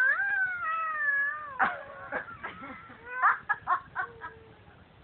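A cat giving a long, wavering, shaky yowl, followed by a run of short meows.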